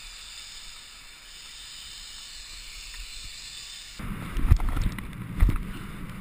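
Faint steady hiss, then about four seconds in, a snowboard sliding over snow with wind buffeting the camera microphone: a low rumble with a couple of loud thumps.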